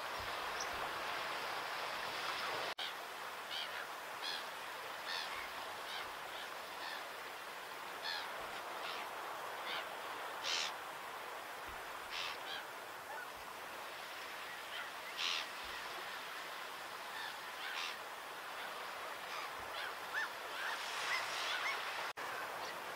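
Steady outdoor background hiss, with many brief, high-pitched bird calls scattered throughout and coming thickest near the end.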